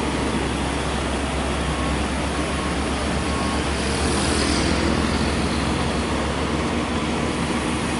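Heavy tractor-trailer's diesel engine running with a steady low drone while pulling a heavily loaded trailer. A motorcycle passes about four seconds in, adding a brief rising and fading hiss.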